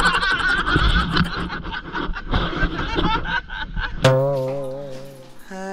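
Several people laughing hard, loud and choppy. About four seconds in it cuts to a single held musical note that fades away, followed by another steady note.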